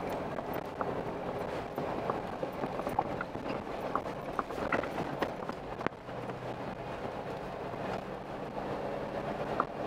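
4x4 vehicle driving up a rough gravel mountain road: a steady engine and tyre drone with scattered clicks and knocks from stones and rattles.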